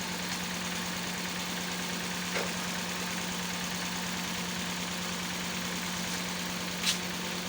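Toyota Corolla petrol engine idling with a steady hum while one cylinder misfires, its ignition coil leaking current to the body. Two light clicks come at about two and a half seconds and near the end.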